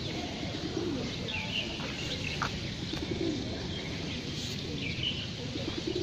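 Feral pigeons (rock doves) cooing, a low murmuring coo about three times, with short higher bird chirps in between over a steady background hiss.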